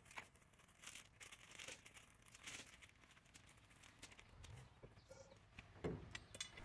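Near silence with faint, scattered rustles and small knocks, a little louder near the end.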